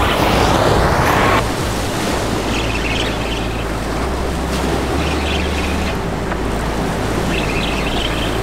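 Waves washing against the jetty rocks, with wind on the microphone; the wind noise drops about a second and a half in.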